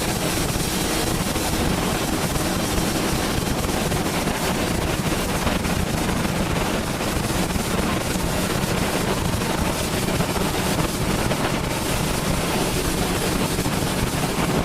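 Tornado winds rushing steadily and loudly around the deployed armored tornado intercept vehicle, heard from inside, as pressure drops enough to pop ears.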